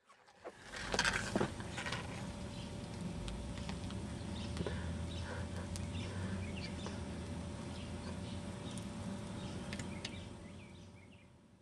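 Outdoor ambience of small birds chirping over a low steady rumble, with a few sharp crackles about a second in as a paper model burns on pavement. The sound fades in and out.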